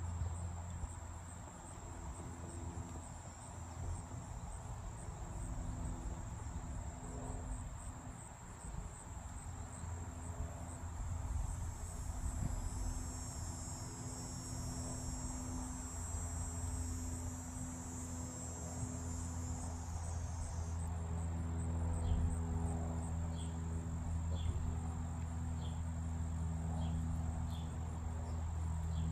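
Insects trilling: a steady, high, finely pulsing tone over a steady low hum. From about two-thirds of the way through, a run of short high chirps joins in.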